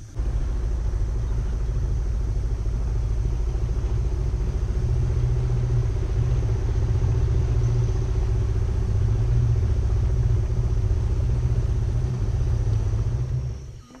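Small river boat's outboard motor running at a steady speed, heard from aboard: a low rumble with a faint steady hum above it, dropping away near the end.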